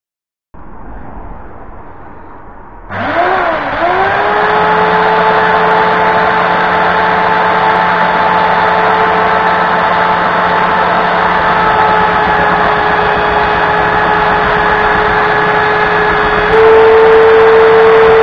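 Benchtop belt sander switched on about three seconds in. Its motor spins up, with a dip and rise in pitch, to a steady whine over the hiss of the running belt. Near the end it runs louder and slightly higher.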